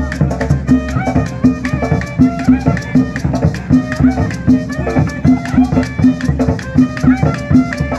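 Live street-band music: a drum beats steadily about twice a second under a shaker rattling and a quick, high melody moving in short stepped notes.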